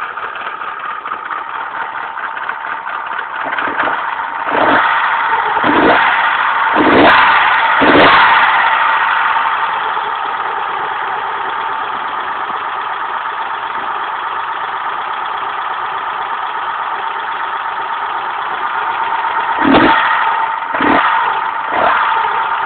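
Volkswagen Polo GT engine with a Weber carburettor, running at a steady idle with quick throttle blips: about five in a row a few seconds in, then three more near the end. The blips test the carburettor's accelerator pumps while they are being adjusted.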